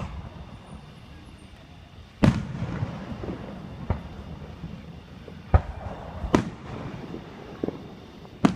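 Aerial fireworks shells exploding: about six sharp bangs at uneven intervals, the louder ones trailing off in a rolling echo.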